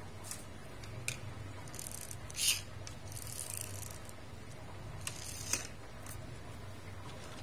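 A small toy car handled and set down on a hard floor: a few light plastic clicks and short scrapes, the loudest about two and a half seconds in and a pair of clicks about five seconds in, over a faint low hum.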